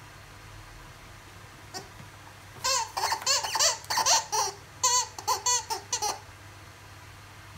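Squeaky bird toy squeaked over and over as a blue-and-gold macaw bites and squeezes it in its beak: a quick run of short squeaks that starts about two and a half seconds in and stops about six seconds in.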